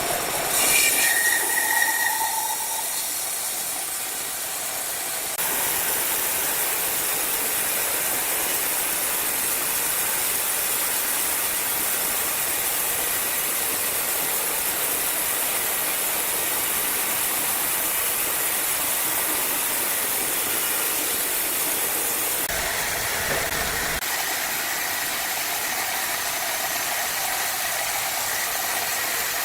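Woodworking saw machinery running and cutting wood, giving a steady, hissing mechanical noise. It gets louder about five seconds in and shifts in tone a little past twenty seconds, with a brief whine in the first two seconds.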